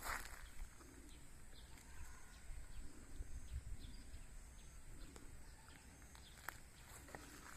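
Quiet rural outdoor ambience: a few short, faint bird chirps over a low rumble and a thin, steady high-pitched tone.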